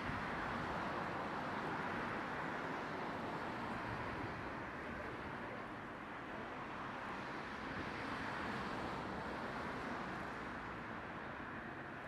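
Steady outdoor background noise, an even hum with no distinct calls or knocks.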